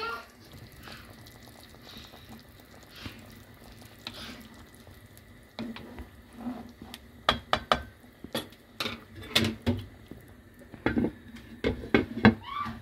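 A pan of stew simmering with faint bubbling, then a run of clinks and knocks as a spatula and a glass lid strike the pan. The last knock comes near the end, as the lid is set on.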